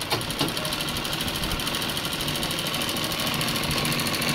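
Arihant sewing machine driven by a small electric motor, running steadily and stitching cloth, its needle going up and down in a fast, even rhythm.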